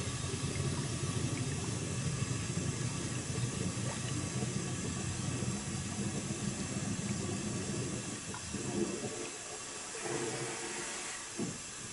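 Compressed air hissing and bubbling up through the water as it is pumped under a capsized motorboat's hull to float it. The sound is steady and grows a little weaker after about eight seconds.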